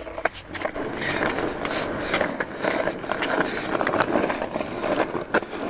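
Skateboard wheels rolling along a rough street: a steady gritty rumble with scattered clicks and rattles.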